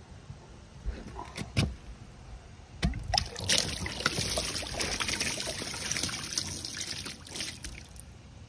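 Water rushing out of an inground pool's wall return fitting as the rubber test plug is pulled, releasing the pressure-tested return line. A few clicks as the plug is worked loose, then a gush starts about three seconds in, runs for several seconds and tapers off near the end.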